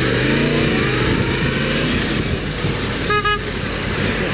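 Sport motorcycle engine running under wind and road rush, its revs falling and rising in the first second or so, with a brief horn toot about three seconds in.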